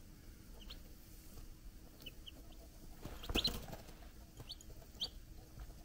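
Three-day-old chicks peeping in short, high, rising chirps, scattered about once a second. A brief knock comes about three seconds in.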